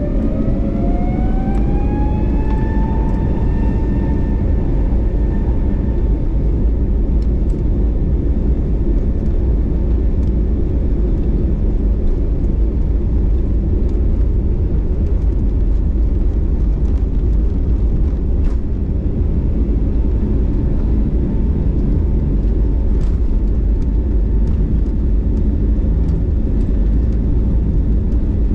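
Airbus A321neo jet engines spooling up, heard inside the cabin: a whine rises in pitch over the first few seconds, then holds steady at takeoff thrust over a loud, constant rumble of engine and runway roll.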